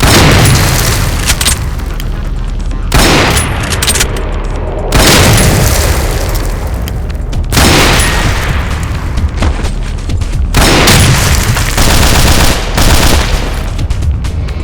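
Designed gunfire sound effects: repeated bursts of gunshots and heavy booms, about six loud blasts that each flare up suddenly and fade, over a steady low drone.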